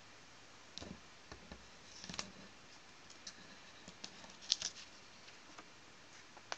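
Sheet of drawing paper being handled and lifted off a drawing board: faint, scattered light taps and rustles, the loudest about four and a half seconds in.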